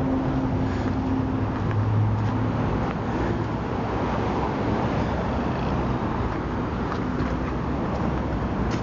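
Steady road traffic noise from passing cars and trucks, with a low engine hum that is strongest about one to three seconds in.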